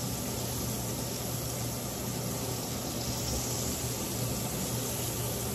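Beef roast sizzling in hot oil in a cast-iron skillet as it sears: a steady hiss with a low hum underneath.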